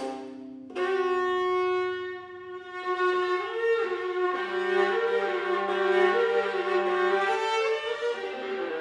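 Solo viola played with the bow in a slow improvised melody. A sustained note comes in under a second in, and in the middle a lower note is held beneath the melody as a double stop.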